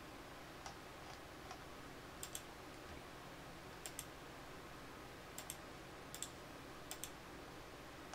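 Computer mouse clicking: sharp clicks, mostly in quick pairs, about five pairs over several seconds with a few fainter single clicks before them, over a faint steady hiss.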